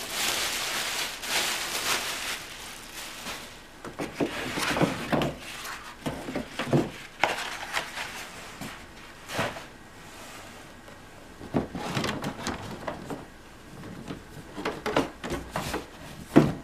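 Clear plastic wrapping crinkling as it is handled, then scattered rustles and knocks of packed parts being lifted out of a cardboard box, with a sharper knock near the end.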